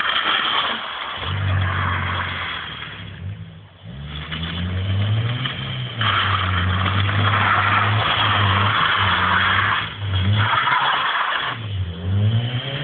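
Ford Fiesta's engine revving hard and held at high revs in long stretches as the car is drifted, with a rushing hiss alongside it. The revs drop off and build again a little under four seconds in, and briefly dip twice near the end.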